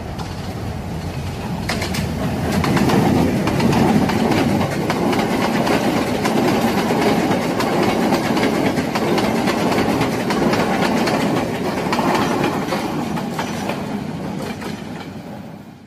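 Passenger train running on the rails, its wheels clattering over rail joints. It grows louder over the first few seconds, holds steady, then fades out near the end.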